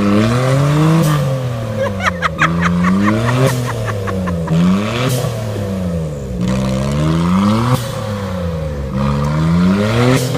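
A vehicle's engine revving up and down over and over, roughly once every second, as the driver works the throttle to get through mud.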